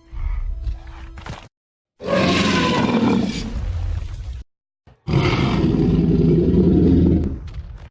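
Jurassic Park T. rex roar sound effect: two long, loud roars with a brief silent gap between them, after a short low rumble at the start.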